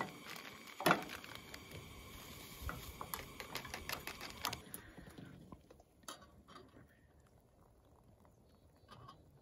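Light rustling and small clicks of tableware as powdered soup packets are torn open and emptied into wooden bowls, with a sharp knock about a second in. The second half is quieter, with only a few scattered clicks.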